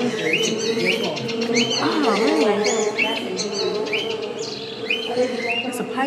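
Repeated high chirping calls, about two a second, each rising quickly and then holding its pitch, over a steady low hum and faint background voices.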